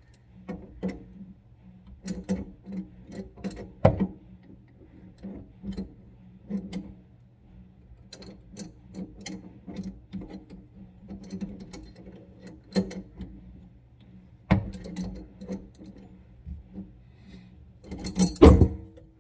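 Irregular metal clicks and clinks of a wrench and fittings as the kitchen faucet's supply hoses are worked loose under the sink, with three louder knocks, about four seconds in, near fourteen seconds, and near the end. A steady low hum runs underneath.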